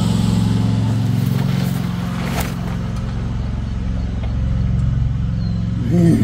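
A motor running at a steady speed, giving a constant low hum, with one sharp tap about two and a half seconds in.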